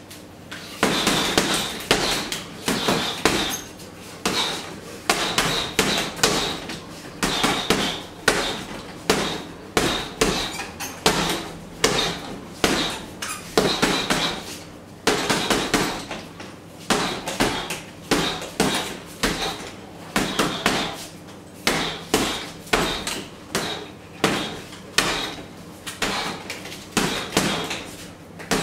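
Boxing-gloved punches landing on a hanging heavy punching bag, thrown in quick combinations of several hits with short pauses between them.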